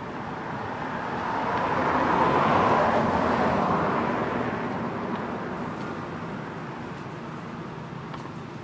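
A motor vehicle driving past: a steady rushing noise that builds to its loudest about two and a half seconds in, then slowly fades away.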